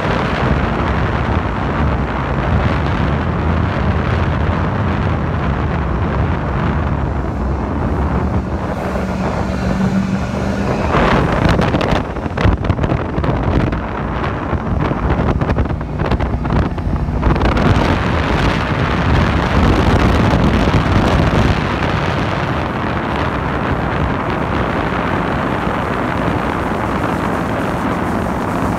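Motorboat engine running steadily while the boat cruises, with wind noise buffeting the microphone, roughest between about 11 and 17 seconds in.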